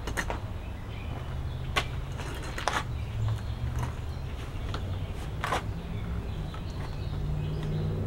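A low engine hum that swells and fades, with a few sharp clicks and knocks over it.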